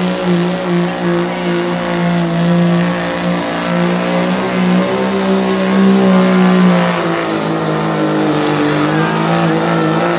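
Diesel pulling truck running flat out at steady high revs while dragging the pull sled, its engine note holding nearly level with small dips and a thin high whistle above it.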